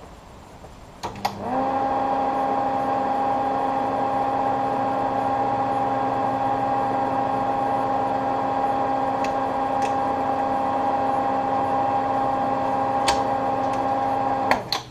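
Old slide projector switched on with clicks, its cooling fan motor spinning up within half a second to a steady humming whir that runs until it is switched off with a click near the end.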